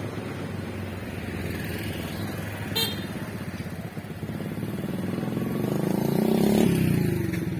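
Road vehicle engines running and passing close by, growing louder to a peak about six and a half seconds in, then falling away, with one short high beep about three seconds in.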